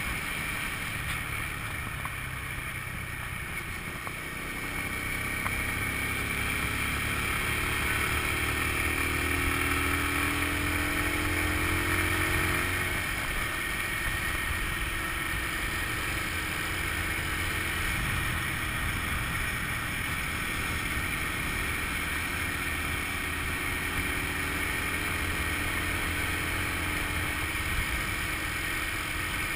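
Honda scooter engine running while riding along a road. Its pitch rises as it speeds up from about four seconds in, then holds steady at cruising speed from about halfway.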